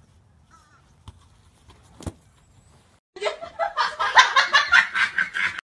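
Quiet at first, with two faint knocks. A little over three seconds in, a person laughs hard in rapid, even ha-ha pulses for about two and a half seconds, then cuts off suddenly.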